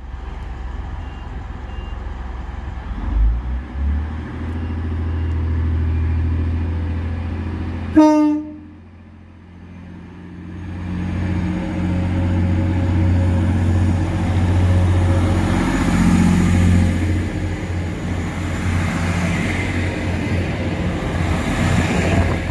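Class 185 diesel multiple unit's engines running at a station platform, with one short, sharp horn toot about eight seconds in. After a brief lull, a Class 185 accelerates past close by, its engine and wheel rumble building steadily.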